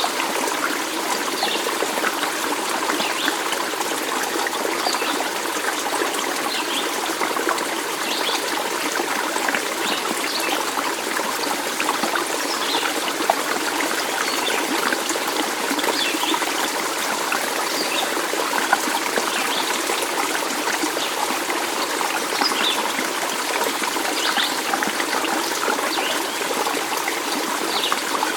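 Stream water trickling and burbling steadily, with short high ticks scattered through it.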